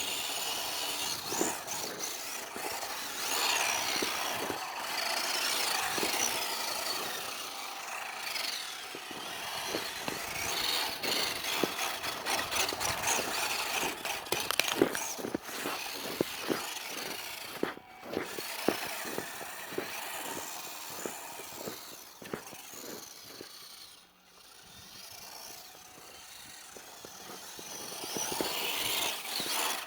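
WPL D12 RC drift truck's small electric motor whining while it is driven, the pitch rising and falling with the throttle, with many short clicks and ticks among it.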